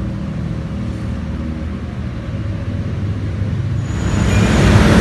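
Low rumble of road traffic, swelling louder and fuller about four seconds in.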